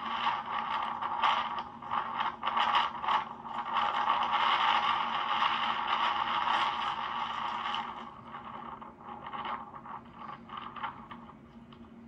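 Rustling, scraping noise with many short scratches, loudest and most continuous over the first two-thirds, then thinning to scattered scratches near the end.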